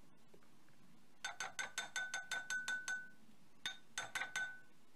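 A small ceramic ramekin tapped rapidly against the rim of a glass measuring jug to knock ground spices out: a run of about a dozen quick clinks, some six a second, with the glass ringing, then a short pause and about five more.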